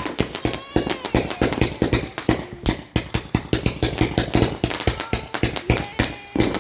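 Firework cake firing a rapid string of sharp shots, about five or six a second without a break, with some whistling tones among them.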